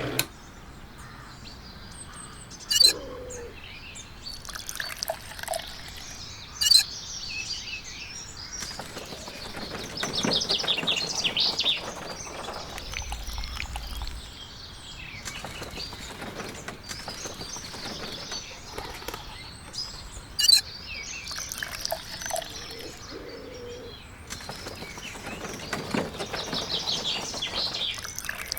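Birds chirping in quick trills, with three sharp knocks or clacks standing out over them.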